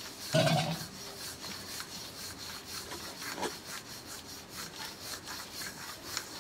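Wooden rolling pin rolling out a flour-dusted stuffed paratha on a rolling board: a dry rubbing scrape with each stroke, about three strokes a second. A brief low hum, the loudest thing, about half a second in.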